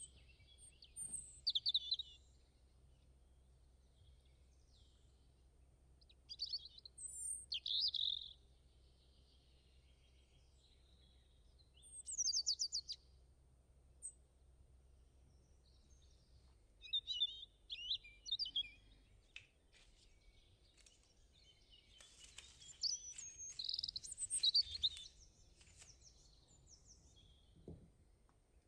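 Small birds chirping and singing in short high phrases every few seconds, one a quick run of rapid notes about twelve seconds in, over a faint low hum.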